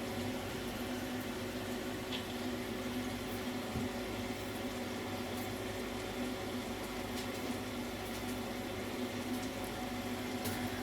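Steady low hum with a faint hiss from a Potterton Suprima gas boiler sitting after a reset, still not firing.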